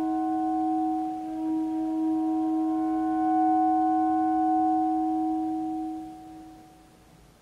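Soft, sustained saxophone tones layered with live-recorded playback of the saxophone through loudspeakers, several pitches held together as a steady chord. The sound fades away about six seconds in.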